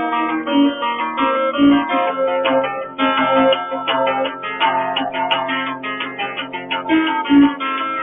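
Solo acoustic guitar playing an instrumental folk tune, with single notes and chords picked in quick succession and left ringing. The picking grows busier about three seconds in.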